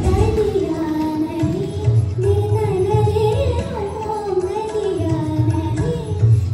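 A woman singing a semi-classical Hindi film song over a backing track with a steady drum beat, her voice bending through ornamented turns in one continuous melodic line.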